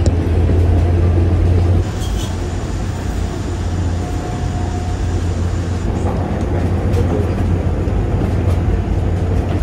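Train running with a steady low rumble and hum, heaviest for the first two seconds and then easing slightly.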